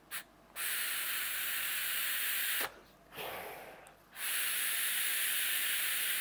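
Two long draws on a sub-ohm vape, a Blaze Boro tank on a Blaze AIO fired at 40 watts to bed in a new 0.3 ohm coil. Each draw is a steady airy hiss of air and vapour pulled through the airflow and the firing coil, about two seconds long, and the second starts about four seconds in. Between the draws comes a softer, fading breath of exhaled vapour.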